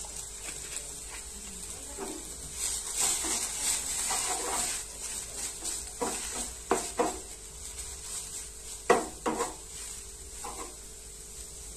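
Maggi noodles sizzling in a non-stick frying pan as they are stir-fried with a wooden spatula. A few sharp knocks of the spatula against the pan come between about six and nine and a half seconds in.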